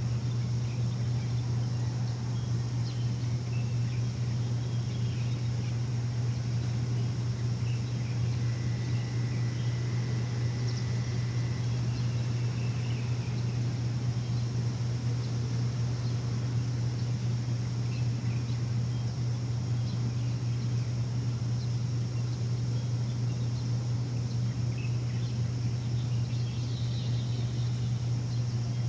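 A machine hum, steady and low, under faint scattered bird chirps, with a thin steady high tone lasting about three seconds a third of the way in.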